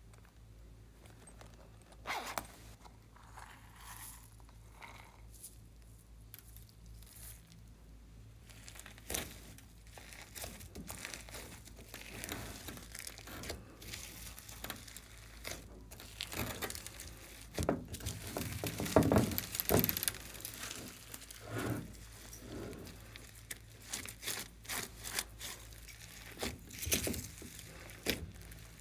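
Hands mixing and squeezing glossy slime loaded with foam beads in a glass dish: irregular crackling and squishing, sparse at first, then busier and loudest a little past halfway.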